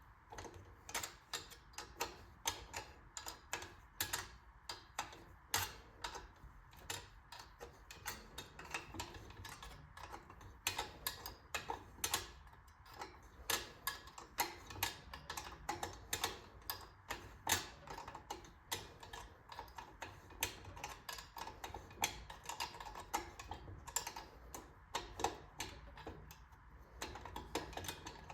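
Ratchet wrench clicking in quick, irregular runs as bolts are worked loose.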